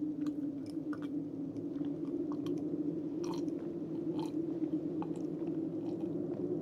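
Close-miked mouth chewing with scattered short crunchy crackles, the two clearest about three and four seconds in, over a steady low hum.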